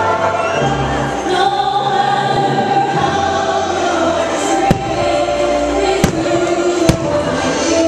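Fireworks show soundtrack with a choir singing over music, with three sharp firework bangs about two-thirds of the way through.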